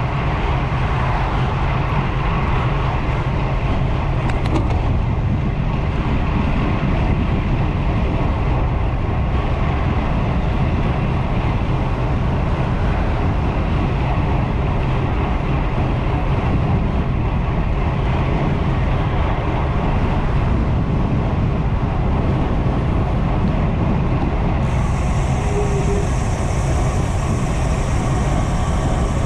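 Steady wind rumble on a handlebar-mounted GoPro's microphone and road noise from a bicycle in motion. A high hiss joins near the end.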